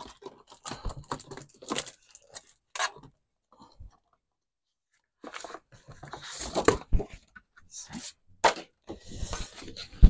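Sheets of card being rummaged through and handled: scattered rustles and light knocks, a short spell of near quiet about four seconds in, then denser rustling.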